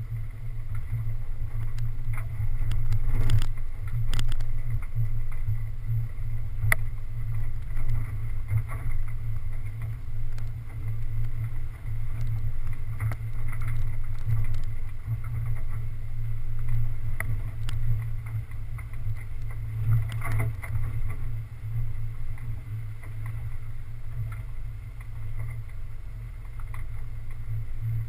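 Off-road 4x4's engine running at low speed as it drives along a rocky dirt track, a steady low drone heard through a hood-mounted camera. Occasional sharp knocks come from stones and the suspension.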